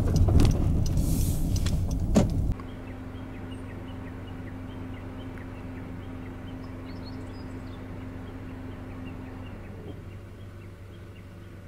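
Honda N-BOX cabin noise as the car slows to stop, with sharp clicks, then a sudden drop to a quiet steady hum with faint ticks, one of its tones stopping near the end.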